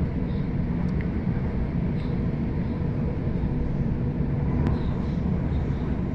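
Steady low rumble inside a moving Sydney Trains Waratah electric train carriage, with faint clicks about a second in and again near five seconds.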